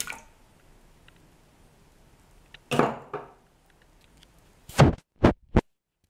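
Kitchen handling noises at a blender jar while eggs are added: a short scraping clatter, then three quick knocks close together, and the sound cuts off abruptly.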